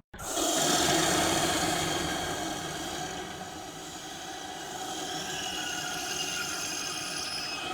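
Monster sound effect: a steady, droning growl made of many sustained tones, starting after a brief silence, loudest about a second in, then easing a little and holding.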